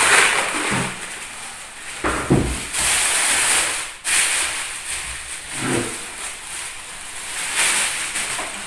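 Plastic bag rustling and crinkling as it is handled and pulled off a speaker cabinet, with a couple of dull bumps from the cabinet being moved.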